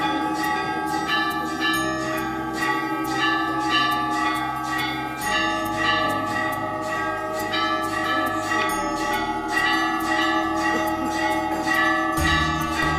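Bells rung in rapid repeated strikes, about three a second, their tones ringing on and overlapping. Underneath is a low steady drone that shifts to a new pitch every few seconds.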